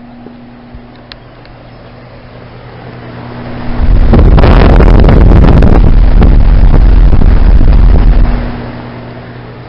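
2008 Goodman heat pump outdoor unit humming steadily, running with its compressor off. From about three seconds in, a loud rushing noise swells, overloads the recording for about five seconds, and falls away again near the end.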